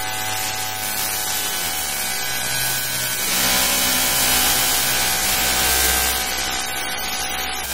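Harsh electronic noise texture FM-synthesized from the RGB values of an image's scan lines: a dense hiss threaded with many steady held tones. Its low register shifts a little under two seconds in, and it turns brighter and hissier about three seconds in.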